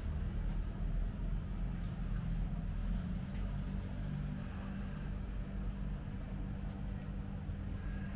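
Steady low rumble with a level hum, background noise of an indoor shop.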